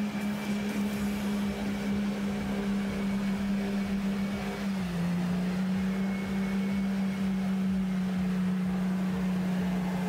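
Toyota Land Cruiser's engine held at high revs under load as it ploughs through deep mud and water, a steady drone whose pitch drops slightly about five seconds in, over the wash of churned mud and water.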